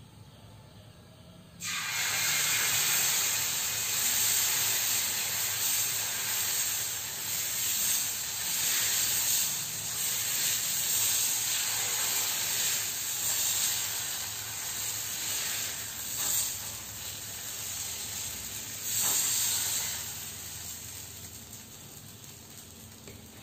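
Jackfruit dosa batter sizzling on a hot tawa as it is poured and spread in circles with a ladle. The hiss starts suddenly about two seconds in and eases off near the end.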